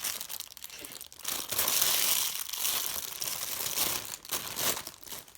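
Plastic squishy packaging crinkling and tearing as it is opened, in loud, irregular bursts through the middle of the clip.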